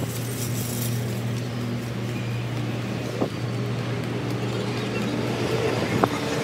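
City street traffic: a steady engine hum from nearby vehicles, with two short sharp knocks about three and six seconds in.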